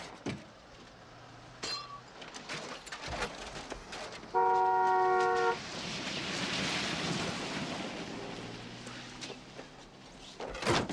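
A car horn sounds once, held steady for just over a second, roughly midway through; it has two notes together. Around it are scattered small knocks, a rushing noise for a few seconds afterwards, and a sharp knock near the end.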